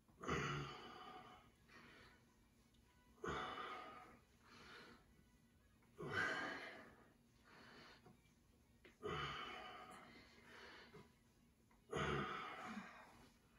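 People breathing out hard during kettlebell lifts: a loud sighing exhale about every three seconds, five in all, each starting sharply and trailing off.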